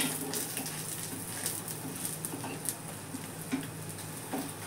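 Egg paratha frying gently in ghee on an iron tawa, a faint steady sizzle, with a sharp clack of a steel spatula against the tawa right at the start and a few light ticks after.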